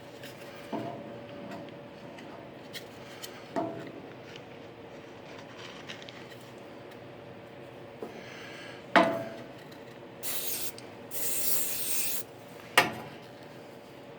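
Sandpaper rubbed by hand on a wooden bandsaw box, with several sharp knocks of wood and two longer, brighter hissing strokes near the end. A faint steady hum lies underneath.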